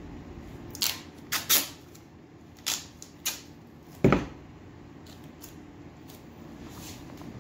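Duct tape pulled and torn from the roll in five short rips, then a knock as the tape roll is set down on the wooden work table, about four seconds in.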